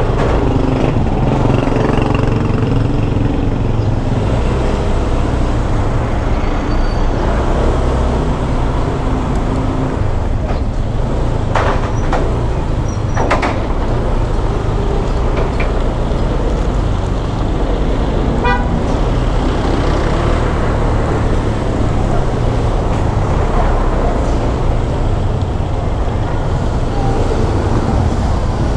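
Honda Click 125 scooter riding in traffic: steady engine and road noise under a heavy rumble of wind on the microphone. A vehicle horn toots briefly about two-thirds of the way through.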